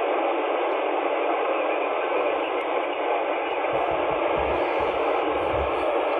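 Steady static hiss from a two-way radio's speaker, with the channel open and no station transmitting.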